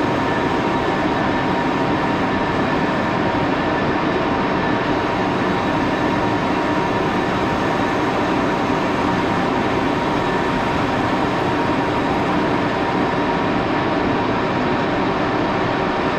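Axelson engine lathe running steadily while taking a cut on a small metal part, a constant machine hum with a faint steady whine.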